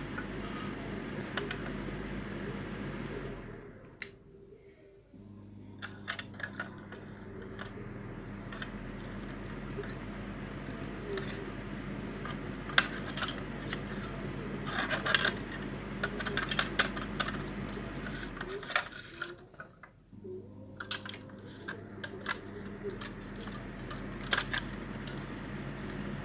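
Hands handling a plastic appliance housing and its power cord: scattered light plastic clicks and rattles over a steady low hum, which drops out twice for a second or two.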